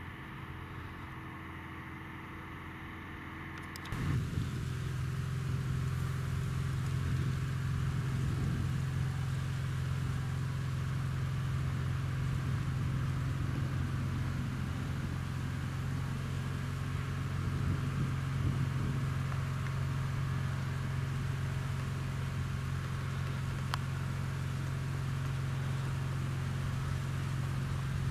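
Steady low drone of fire-service diesel engines running at the fireground, starting suddenly and loud about four seconds in; before that, a quieter vehicle engine hum.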